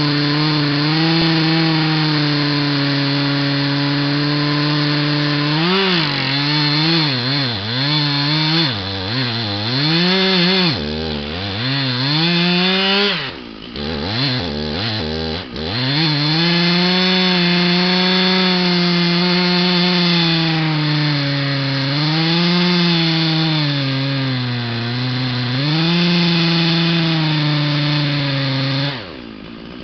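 Stihl two-stroke chainsaw at full throttle, cutting through a large log. About a third of the way in its pitch sags and recovers again and again under load, and around the middle it drops low briefly before coming back up. Near the end it falls back to idle.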